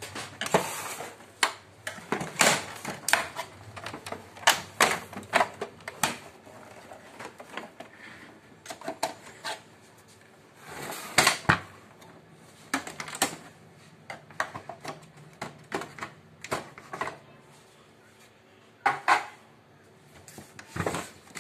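Irregular plastic clicks, snaps and knocks from an HP LaserJet M1213 printer's casing as its side cover is unclipped and the printer is lifted and tipped over, with quieter stretches between the clusters of knocks.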